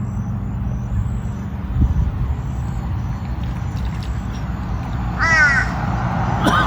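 A steady low rumble, then two short, harsh animal calls, each falling in pitch, near the end.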